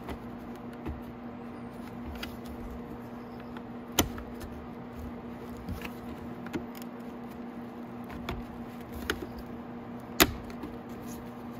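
Sharp plastic clicks and knocks as a motorcycle's plastic headlight housing and fairing pieces are handled and pressed together. The two loudest clicks fall about four and ten seconds in, with lighter ticks between, over a steady low hum.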